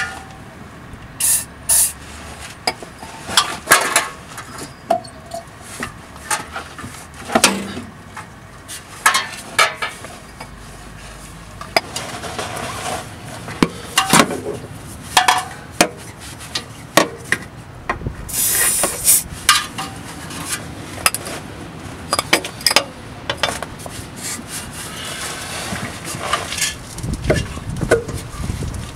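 Irregular metallic knocks, clinks and rubbing from an exhaust pipe and its steel hanger rod being worked back into a rubber hanger isolator under a car.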